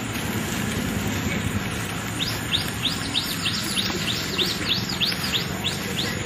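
A bird calling a rapid run of repeated short, high chirps, about three a second, starting about two seconds in, over steady outdoor background noise.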